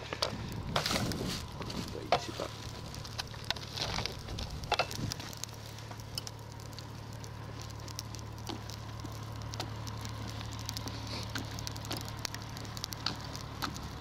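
Freshly lit charcoal briquettes crackling, with scattered sharp pops and clicks thickest in the first few seconds. A steady low hum runs underneath.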